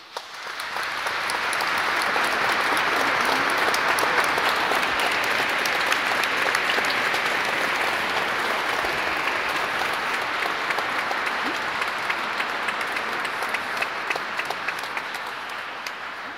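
A large congregation applauding in a vaulted cathedral nave. The clapping starts suddenly, swells over the first second or two, then slowly thins toward the end.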